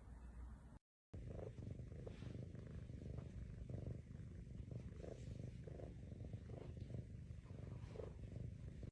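Domestic cat purring: a low, steady rumble that swells and fades with each breath, starting about a second in.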